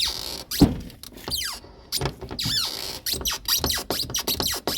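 Worn original door check (door limiter) of a Peugeot 306 squeaking and creaking as the door is worked, its steel pin sliding in a worn body-side bracket. A few short falling squeals come first, then a quick run of clicks and creaks from about halfway through.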